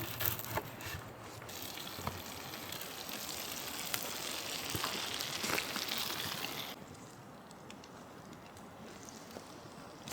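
Food sizzling and crackling over a campfire: a steady hiss with scattered small crackles. It stops abruptly about seven seconds in, leaving a fainter hiss.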